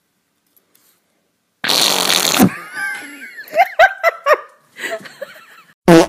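A loud, raspy fart lasting under a second, about a second and a half in, ending on a low tone. It is followed by a person laughing in short bursts, and a brief loud burst cuts in at the very end.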